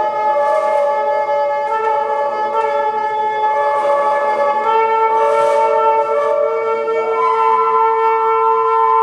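Two brass horns, a hechtyphon and a microtone duplex, playing a slow duet of long held notes that overlap and change pitch in steps every second or two. Airy breath noise comes through a few times.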